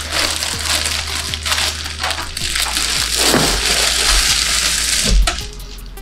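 A clear plastic wrapping bag crinkling and rustling as it is pulled off a PC case. The crackle is dense and continuous and eases off about five seconds in.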